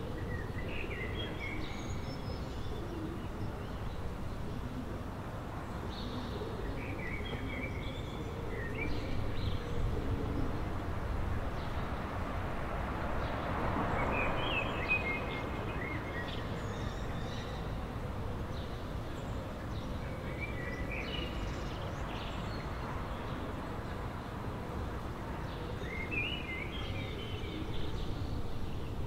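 Steady low city background rumble beside a canal, with short phrases of songbird song recurring every five or six seconds. A brief swell of noise comes about halfway through.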